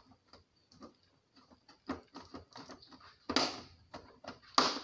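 Handling noise from a small LED TV being reassembled and turned round: scattered light clicks and taps, with two louder knocks about three and a half and four and a half seconds in.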